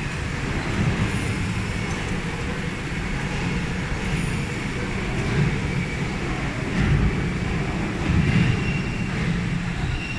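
Steady machinery rumble in a metal machining workshop, with a couple of louder swells and a faint high whine near the end.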